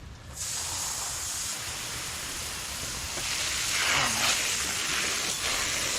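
Garden hose spray nozzle spraying water over a BMX bike: a steady hiss that starts suddenly about half a second in and gets stronger about three seconds in, the spray pressed harder than the light mist that is needed.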